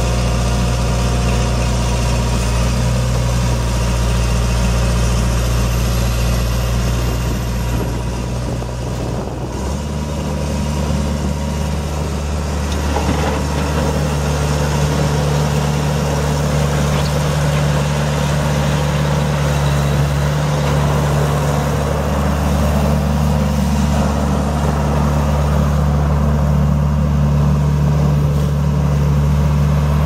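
Case 1840 skid steer's four-cylinder diesel engine running steadily as the loader works and drives, its note shifting to a different steady pitch about ten seconds in.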